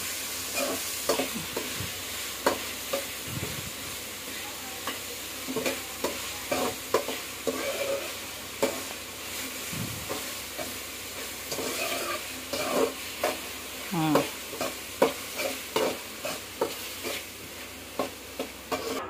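Chopped tomatoes, onions and green chillies sizzling steadily in oil in an aluminium kadai, while a metal spatula scrapes and clacks against the pan in irregular strokes.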